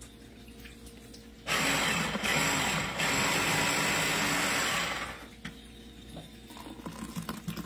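The small electric motor of a portable coffee gadget runs for about three and a half seconds, starting about a second and a half in and dying away near five seconds, with a faint hum on either side.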